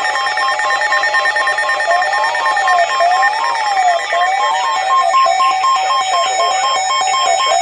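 Electronic emergency-alert alarm tones for a severe thunderstorm warning: loud pulsing tones that alternate between two pitches, joined about two seconds in by a siren-like sweep that rises and falls about once a second.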